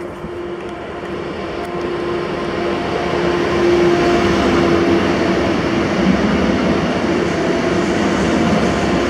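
An ŁKA Newag Impuls 2 (36WEd) electric multiple unit pulls into the station and runs along the platform. It grows louder over the first few seconds as it draws near, then holds steady as the cars pass, with a steady electric hum over the rolling noise.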